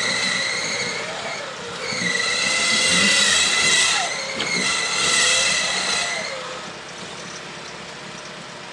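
Electric winch on an off-road 4x4 whining under load in three pulls of about two seconds each, stopping about six seconds in. The truck's engine runs underneath, its pitch rising and falling.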